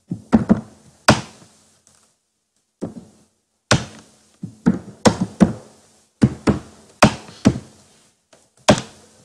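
Computer keyboard being typed on close to the microphone: hard, irregular key strikes in short runs, with a pause of about a second and a half shortly after the start.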